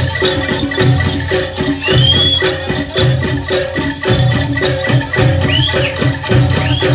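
Javanese jaranan gamelan accompaniment: struck metal keyed instruments playing a repeating pattern over a steady beat of low drum strokes, with a jingling, shaker-like rattle. A few short high sliding notes rise over the music about two seconds in and again near the end.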